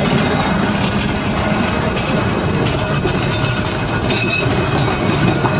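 Double-deck electric tram No. 762 running on its rails as it leaves the depot: steady rumble and clatter of the wheels over the track with a low hum, and a brief high-pitched sound about four seconds in.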